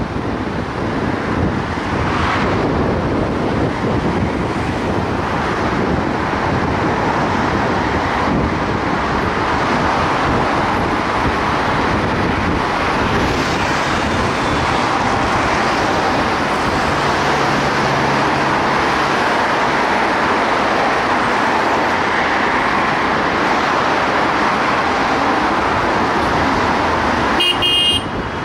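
Steady city traffic and road noise from a car driving in slow, dense multi-lane traffic. A brief high tone sounds about a second before the end.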